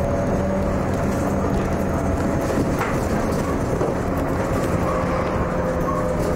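An MCW Metrobus double-decker's Cummins diesel engine and drivetrain running steadily as the bus drives along, heard from inside the upper deck. A steady whine drifts slowly lower in pitch over the engine noise.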